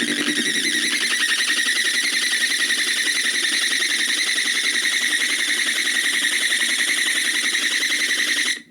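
A loud, steady, high-pitched buzzing tone with a rapid flutter that cuts off suddenly near the end.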